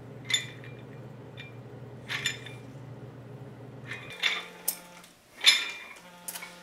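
Metal weight plates clinking against each other and the curl bar: a few sharp ringing clinks, the loudest about five and a half seconds in, over a low steady hum.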